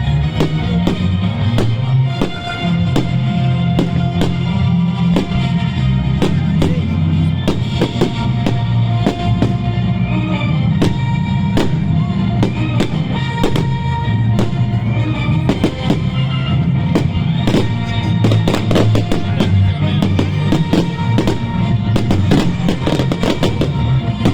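Fireworks display: many sharp bangs and crackles going off over loud music with a heavy bass line, the bangs coming thicker in the second half.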